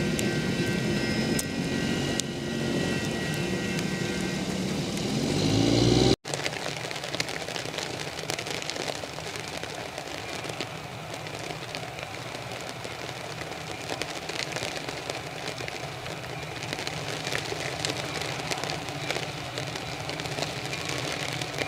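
Freight train passing, with steady high ringing tones and a low rising sound that grows louder until it cuts off abruptly about six seconds in. After that, steady rain falling.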